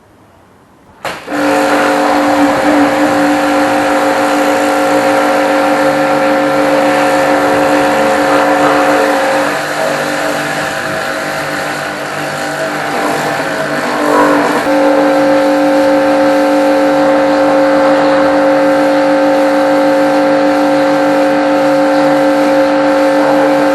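Pressure washer starting abruptly about a second in and running with a steady motor hum over the hiss of the spray jet, blasting paint stripper and paint off a cast-iron engine block. The hum wavers and drops for a few seconds around the middle, then steadies again.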